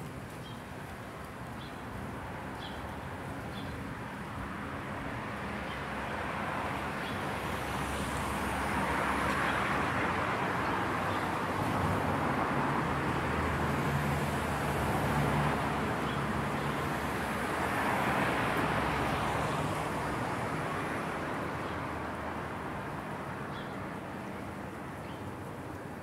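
Cars passing on a quiet road, their tyre and engine noise swelling to a peak in the middle and fading away again.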